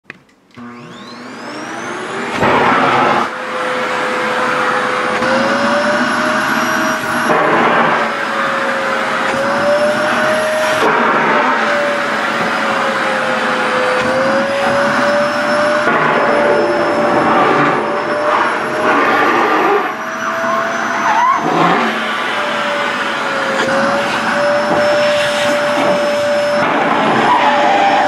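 A SHARP EC-KP7F-A vacuum cleaner switches on about half a second in and winds up to speed with a rising whine. It then runs steadily, its motor pitch sliding up and down as the nozzle sucks in the skirt fabric and is choked by it, with a few brief sudden rushes of air and cloth.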